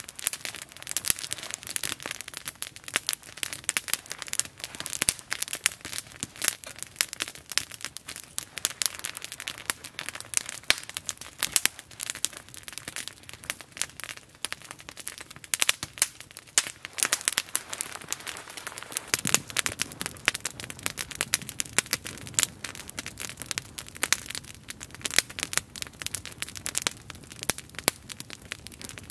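Wood campfire crackling and popping steadily under a metal pot. A low steady rushing joins about two-thirds of the way through.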